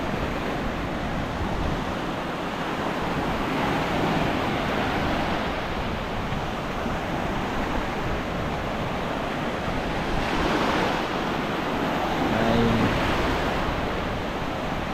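Sea surf washing onto a beach in a steady rush, swelling about four seconds in and again about ten seconds in, with wind buffeting the microphone.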